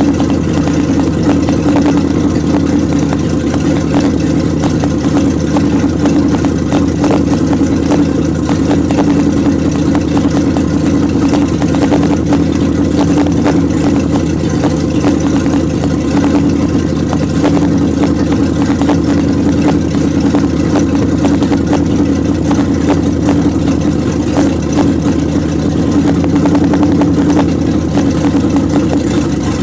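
A 1929 Chrysler's engine idling steadily as it warms up.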